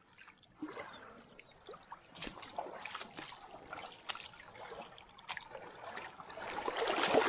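Shallow water lapping and trickling among shoreline rocks, swelling louder near the end, with a few sharp clicks or taps scattered through it.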